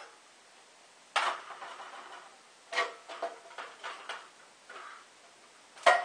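Sheet-metal heater duct pieces (round pipe, elbow and stack boot) clanking and rattling as they are lifted off and set down on a slatted metal table: a sharp clank about a second in, a cluster of clinks around three to four seconds, and the loudest clank near the end.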